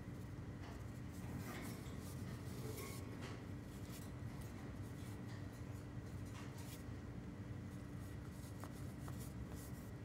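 Scattered light scratches and rustles of a male cockatiel's feet and feathers against a cloth nest lining as he shuffles over his eggs and settles to brood them, over a steady low hum.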